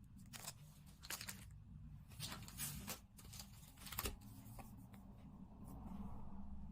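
Merchandise packaging being handled and torn open: several short crinkly rustles and tears, the sharpest about four seconds in.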